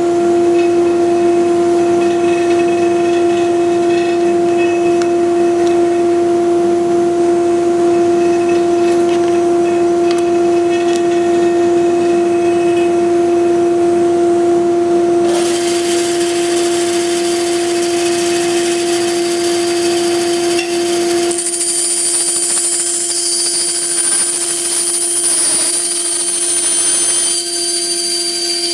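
Bandsaw running steadily with a constant hum. About halfway through a high hiss joins it, and a few seconds later the hum eases while a thin high whistling rises above it.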